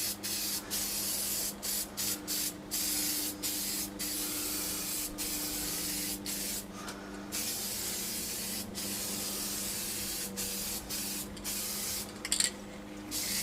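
Aerosol can of fast-dry gloss black spray paint hissing in a long run of sprays, each broken off for a moment before the next, over a steady low hum.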